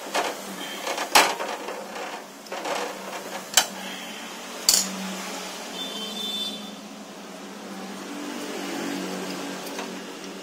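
Parts of a Canon iR6000 photocopier's paper-feed area being handled and fitted back by hand: a run of clicks and knocks of plastic and metal panels, three of them sharper, about a second, three and a half and nearly five seconds in, over a steady low hum.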